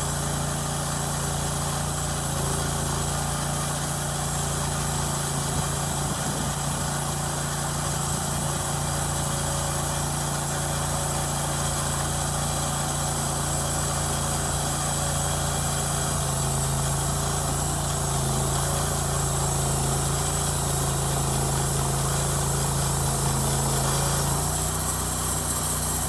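Engine of a home-built sawmill running steadily, with a slight rise in loudness partway through and a small shift in pitch near the end.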